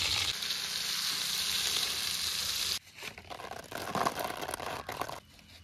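Whole butter fish shallow-frying in butter in an aluminium pan, a steady loud sizzle that cuts off abruptly near the three-second mark. After it come a few quieter irregular rustles and taps.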